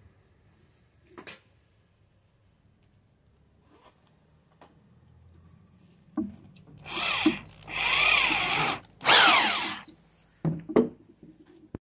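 Power drill working wood in three runs of about a second each, the motor's pitch sweeping up and down as the trigger is worked. A knock comes before the runs, and a few knocks follow them.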